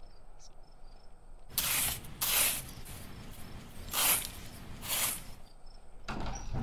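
Spade digging into loose soil: four scraping scoops about a second apart. Faint crickets chirp at first.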